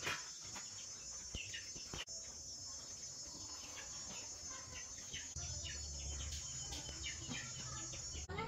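Faint outdoor ambience: a steady high insect trilling with scattered short bird chirps. A low hum joins about five seconds in.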